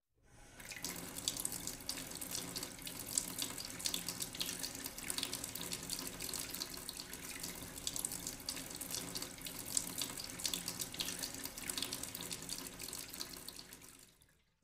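Running water, a steady trickle and splash that fades in at the start and fades out near the end.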